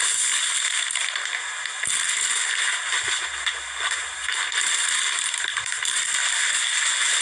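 Plastic parcel bag crinkling and rustling steadily as it is handled and pulled open.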